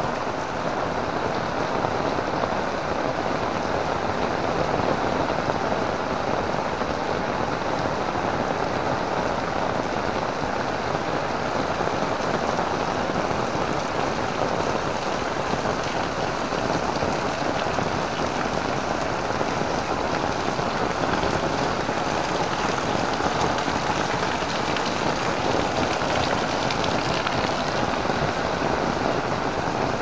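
Heavy rain pouring steadily, a dense, even patter of countless drops with no letup.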